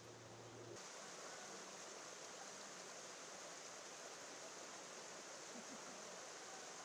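Faint, steady hiss of outdoor background noise. A low hum cuts out just under a second in, where the hiss turns brighter.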